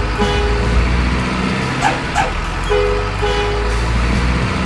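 Steady low truck-engine rumble with short two-tone horn toots: one near the start and a pair of quick toots a little past the middle. Two brief sharp sounds come just before the pair of toots.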